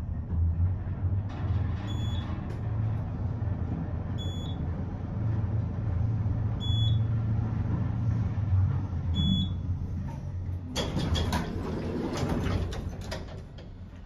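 Otis DC gearless traction elevator car travelling up with a steady low rumble. A short high beep sounds four times, about every two and a half seconds, as the car passes the floors. About three-quarters of the way through, the car stops and the center-opening doors slide open with a rush of noise.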